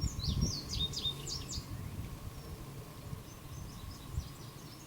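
Small birds chirping in quick runs of short high notes, strongest in the first second and a half and fainter again later, over a faint steady hum and a low rumble of wind-like noise.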